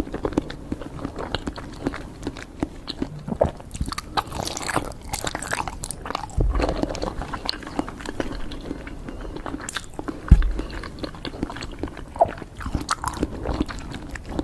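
Close-miked eating of sweets: repeated bites and chewing with many short sharp clicks, and a low thump about ten seconds in that is the loudest sound.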